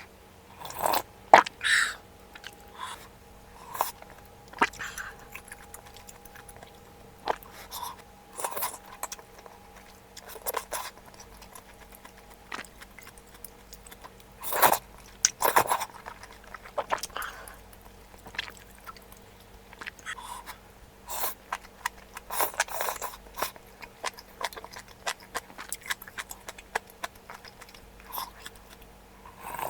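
Close-miked eating of malatang: irregular chewing, biting and crunching of the food, with a louder cluster of bites about halfway through.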